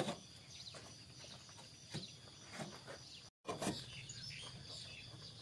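Faint rural ambience with birds chirping and a couple of soft knocks. The sound cuts out completely for a split second a little past halfway.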